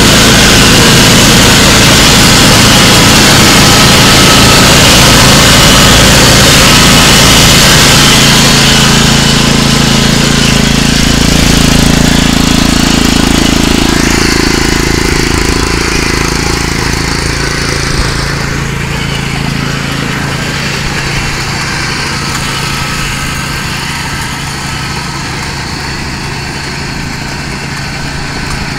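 Small gasoline engine of a homemade tracked halftrack running steadily. It is loud at first and grows gradually fainter from about eight seconds in as the vehicle moves off across the lawn.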